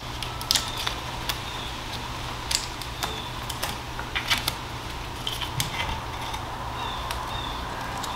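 Electrical tape being peeled off a trolling-motor shaft and hacksaw blade, with scattered sharp crackles and clicks over a steady low hum.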